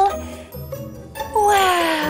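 Background music with a tinkling, sparkly chime. About one and a half seconds in, a voice starts a drawn-out 'wow' that falls in pitch.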